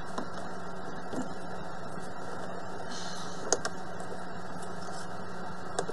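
Light clicks and knocks of PEX pipe and a brass fitting being handled, the sharpest about three and a half seconds in and another near the end, over a steady low hum.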